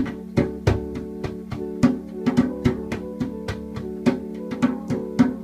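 Instrumental music: sustained notes over a steady percussive beat of about three strokes a second, an instrumental break in the song.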